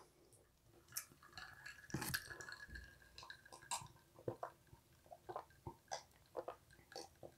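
Faint swallowing and small wet mouth clicks of a person drinking from a glass, a few every second.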